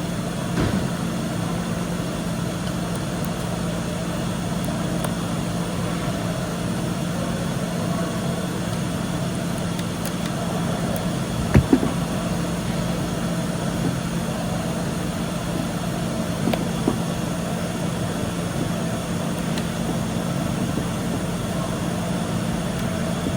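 A steady machine hum, with a few short clicks and knocks from small parts and screws being handled, a pair of them about halfway through.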